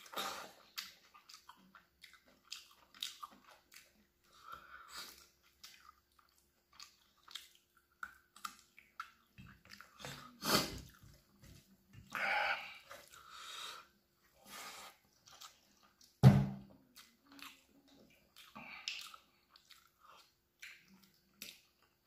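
Eating sounds from chicken curry and rice eaten by hand: wet chewing, lip smacks and scattered short clicks. One sharp knock about sixteen seconds in is the loudest sound.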